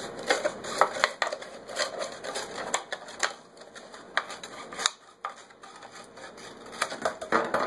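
Scissors snipping through a thin plastic 2-liter pop bottle in a run of sharp, irregular clicks, the plastic crackling as it is turned; the snips thin out past the middle and pick up again near the end.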